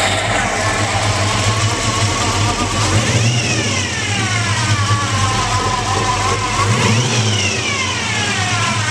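1957 Chevrolet 210's 350 small-block V8 with a mild cam, running at idle and revved twice, about three and seven seconds in. Each time the revs climb quickly and then sink back slowly to idle.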